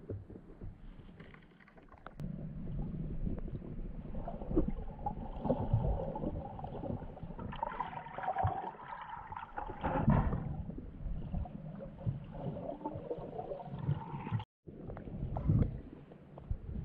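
Muffled water sloshing and gurgling over a steady low rumble, with splashy patches that are strongest in the middle. The sound drops out for a moment near the end.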